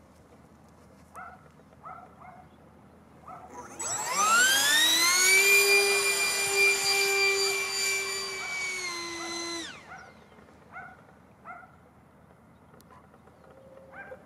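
Radio-controlled Eurofighter model jet's ducted fan whining. About four seconds in it spools up in a steeply rising whine, holds a high steady pitch for about five seconds, dips slightly, then cuts off suddenly.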